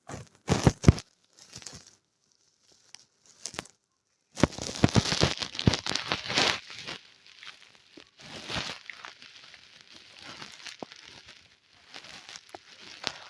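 Calculator keys being pressed close to the microphone: a few sharp clicks, then, from about four seconds in, a dense run of clicks over rustling handling noise that thins out toward the end.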